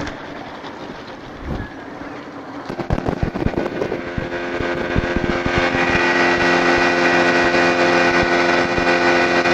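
Outboard motor driving a small fishing boat under way, with water rushing along the hull. About three seconds in there is a run of irregular thumps, and from about halfway the engine settles into a steady, even drone.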